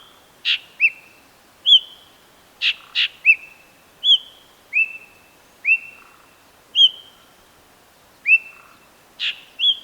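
White-bellied drongo calling: a series of short, clear whistled notes, each arching up and down in pitch with a brief trailing tone, repeated about once a second. A few sharp clicking notes come among them.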